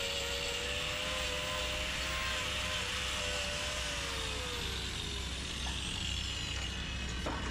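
Hand angle grinder whining unloaded, then falling in pitch and dying away about four to five seconds in as it coasts to a stop, over a steady engine-like drone.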